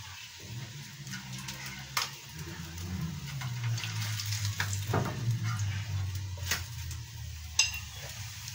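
Pieces of coated fish frying in hot oil in a pan, sizzling, with sharp clicks of a utensil against the pan as the pieces are turned. A low steady hum runs underneath.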